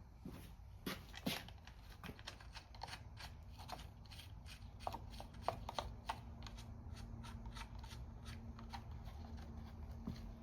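Irregular light clicks and rattles of a saw chain and bar being handled and fitted back onto a Homelite XL12 chainsaw by hand, over a faint low hum.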